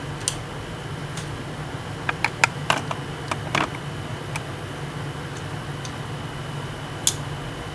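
Scattered sharp metallic clicks and clinks of hand tools being handled and set down, bunched about two to four seconds in, over a steady low hum.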